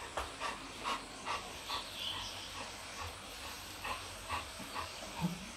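Golden retriever panting with its mouth open, short breaths at about two a second.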